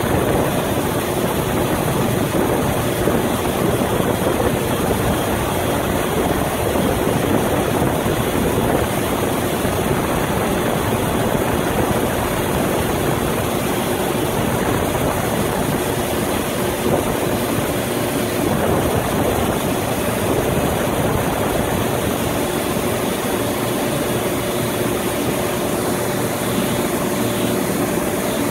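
Coast Guard tender's engine machinery running steadily at idle, a continuous drone with a faint steady hum in it.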